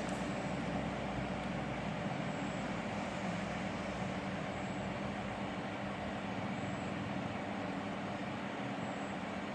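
Steady low rumble and hum of background noise, even in level throughout, with no ringtone playing yet.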